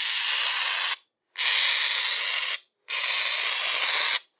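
Aerosol can of Gillette shaving foam spraying in three hissing spells of about a second each, with short breaks between them.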